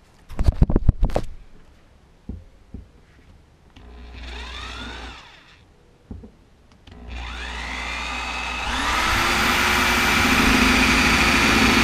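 Cordless drill drilling up into a car's underside: a few sharp clicks, a short spin-up about four seconds in, then from about seven seconds a long run where the motor whine rises and holds as the bit cuts.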